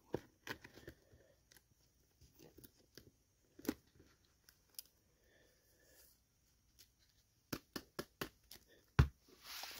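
Cardboard trading cards being handled and shuffled in the fingers: faint rustling broken by scattered small clicks and taps, the sharpest about four seconds in and near the end.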